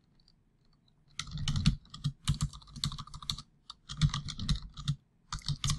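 Typing on a computer keyboard: a quick run of keystrokes that starts about a second in and goes on with short pauses.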